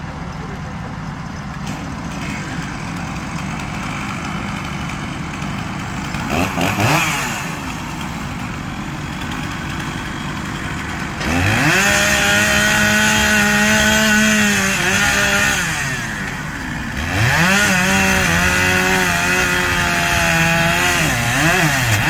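Two-stroke chainsaw idling, blipped briefly about six seconds in, then run up to full throttle twice for about four seconds each, dropping back to idle between and after.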